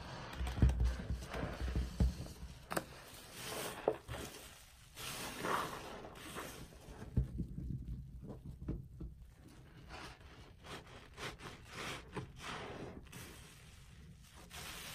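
Wet squelching and crackling as a lathered sponge is squeezed and kneaded in soapy water, coming in irregular bursts.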